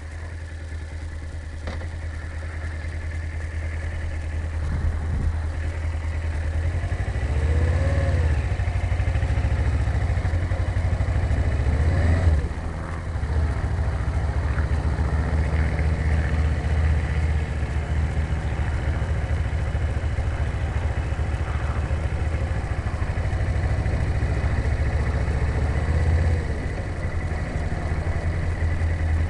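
Motorcycle engine running at low speed, heard from inside the rider's helmet. The revs rise and fall a few times as the bike is turned around and ridden slowly forward.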